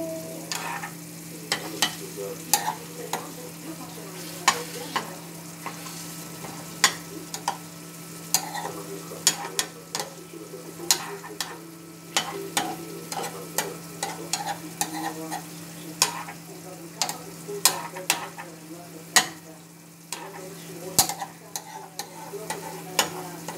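Metal spoon stirring and scraping in a frying pan of shakshuka, clinking against the pan in irregular sharp clicks while the tomato sauce simmers and sizzles over a gas burner. A steady low hum runs underneath.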